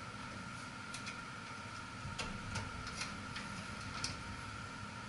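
Faint, irregular clicks and ticks of wires and plastic connectors being handled and pushed together in an air handler's control panel, over a faint steady high tone.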